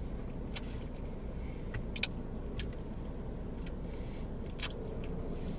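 Someone eating saucy chicken wings: a handful of short, sharp wet smacks and clicks over a steady low rumble.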